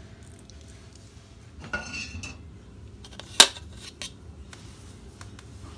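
A spoon and bowl scraping and clinking against a glass baking dish. There is a scrape with a brief squeak about two seconds in, then one sharp clink, the loudest sound, about three and a half seconds in.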